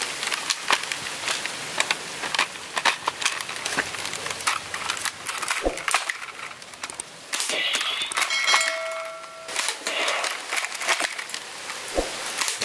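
Toy sniper blaster being fired at plastic targets and bottles: a run of sharp clicks and knocks, with a dull thud about six seconds in and another near the end. A short electronic tone sounds for a couple of seconds around the middle, from the targets' electronic scoreboard.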